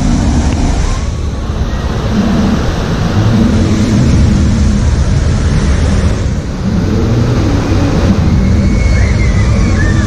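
White water rushing down a raft-ride rapids channel and pouring over artificial rock waterfalls: a steady, loud rushing of water.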